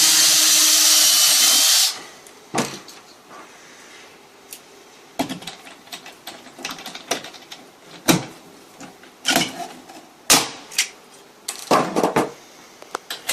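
Power drill running for about two seconds, drilling the fixing for a window lock, then cutting off. Scattered sharp clicks and knocks follow as the lock is handled and fastened.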